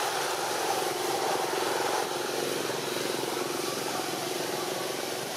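A steady hiss with a low, engine-like drone under it, slightly louder for the first two seconds.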